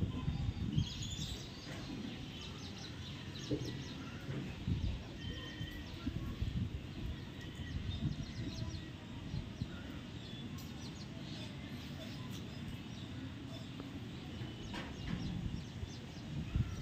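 Outdoor background noise, a steady low rumble, with faint bird chirps here and there.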